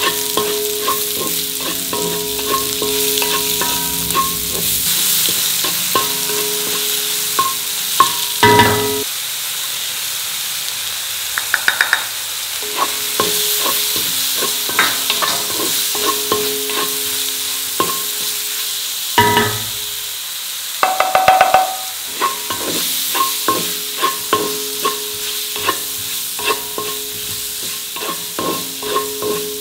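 Mushrooms and capsicum sizzling in oil in a pan while being stirred, with a steady hiss and frequent small clicks and scrapes of the spatula against the pan. There are two louder knocks, about a third and two-thirds of the way through, each followed shortly by a brief rattling run.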